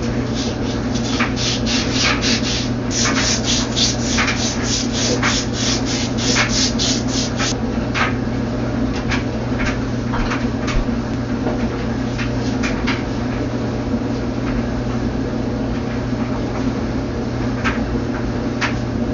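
Wet emery cloth rubbed by hand over the sealing surface of a washer's inner-tub shaft, cleaning it up for a new seal. Quick, regular scraping strokes for the first seven seconds or so, then slower, scattered strokes, over a steady low hum.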